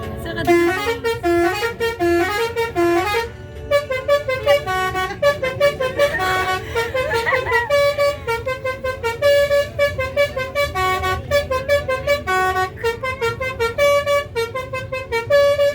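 Basuri telolet horn on a bus playing a melody of quick musical horn notes that step up and down. It begins with a short repeated phrase of lower notes, then runs into a faster, busier tune that goes on to the end.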